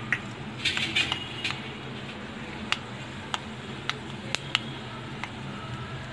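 Mustard seeds sizzling in hot oil in an aluminium kadai, with sharp scattered pops as the seeds begin to splutter. A cluster of clicks comes in the first second or so, then single pops every half second to a second, over a steady low hum.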